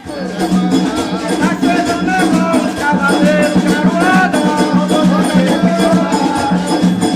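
Tambor de crioula music: hand drums with dense wooden knocking and rattling strokes, under voices singing a gliding melody.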